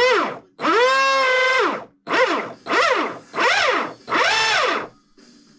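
Brushless RC motor whining as it is throttled up and back down in about five short blips, the pitch rising and falling with each one.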